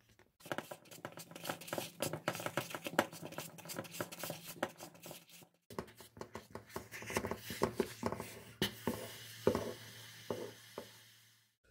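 Wooden spoon stirring and working stiff maize-meal porridge (sadza) in a pot: irregular scrapes and knocks against the pot with a faint low hum beneath. The sound breaks off briefly about halfway through.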